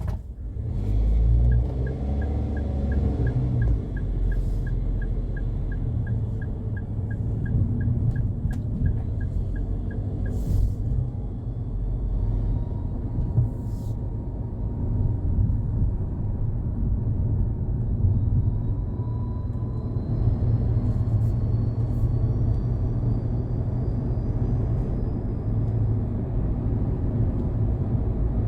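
Daihatsu Hijet Cargo van's small engine running with a steady low rumble; this van is being checked for an abnormal engine noise. A regular light ticking, about three a second, runs through the first ten seconds or so and then stops.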